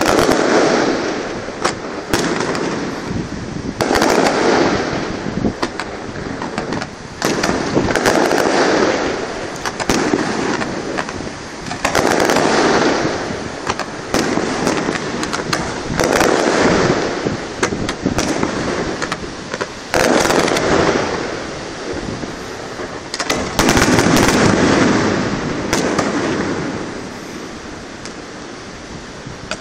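Aerial firework shells bursting in a fireworks display. A loud boom comes about every four seconds, each followed by a fading rumble of echo, with many sharper pops and bangs in between. The bursts die down over the last few seconds.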